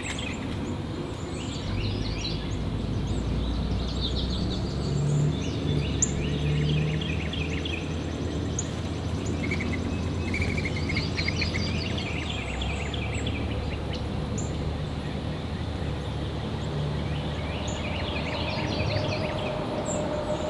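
Wild songbirds singing in repeated bursts of short, quick notes, over a steady low rumble.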